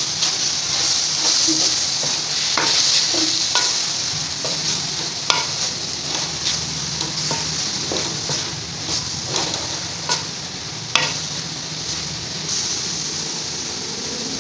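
Shredded vegetables and sauces sizzling in a hot aluminium karahi while a wooden spatula stirs and scrapes through them. A steady frying hiss with scattered sharp taps of the spatula on the pan, the loudest about five and eleven seconds in.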